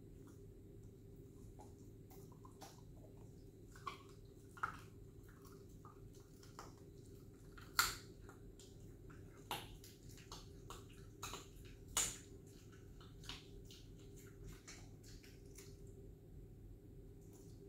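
A dog nosing and licking at a scrap of food on the floor, making scattered short wet clicks and mouth smacks, the loudest about eight and twelve seconds in, over a faint steady hum.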